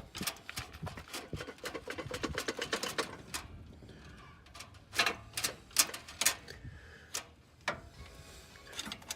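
Hand ratchet wrench clicking as a bolt is turned while an engine mount is being removed and fitted. The clicking is fast for about three seconds, then a few louder separate clicks come a couple of seconds later.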